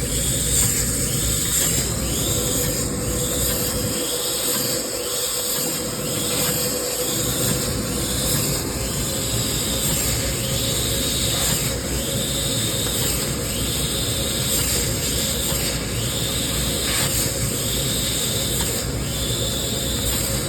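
Han's Laser CNC laser cutter cutting 0.5 mm stainless steel sheet: a steady high hiss with a constant hum under it. The drives whine up and down in pitch about once a second as the cutting head moves and changes direction.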